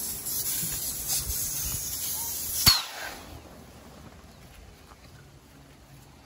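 Air hissing out of an inflatable beam of a Quechua air tent as it is let down, the tent collapsing. A sharp click about two and a half seconds in, after which the hiss dies away.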